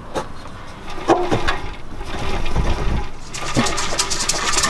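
Loose rust flakes rattling inside a rusted-out stock Mazda Miata NB muffler as it is shaken, a gritty rattle like a maraca. A few knocks, and the rattle grows faster and denser about three seconds in.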